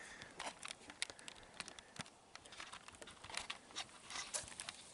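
Faint, irregular clicks and taps over a light hiss: handling noise and footsteps while a phone camera is carried across a wooden deck.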